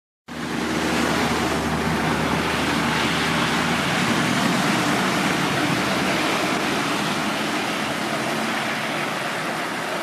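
Rushing water of a mountain stream, a steady, even noise that cuts in suddenly a fraction of a second in.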